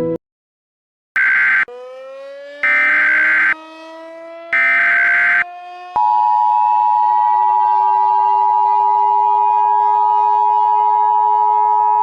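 Emergency Alert System header: three short bursts of screechy data tones, with a siren winding up in pitch underneath. About six seconds in, the steady two-tone EAS attention signal starts and holds, the siren still sounding beneath it.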